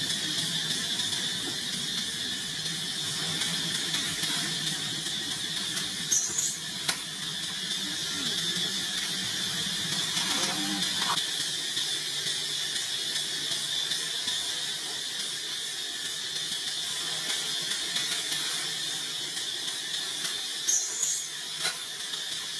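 Steady high-pitched drone of insects. Two short high squeaks cut through it, about six seconds in and again near the end.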